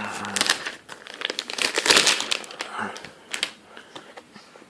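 Packaging crinkling and rustling as it is handled, in a dense run of irregular crackles that is loudest about two seconds in and tails off after about three and a half seconds.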